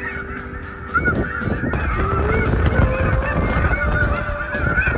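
A flock of snow geese calling overhead: many short, high, overlapping honks that keep coming. A low rumble gets louder about a second in.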